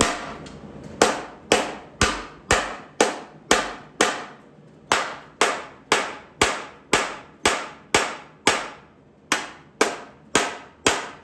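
A hand hammer striking steel on a truck frame's rivets, a steady run of blows at about two a second, each ringing briefly, with a short break about nine seconds in.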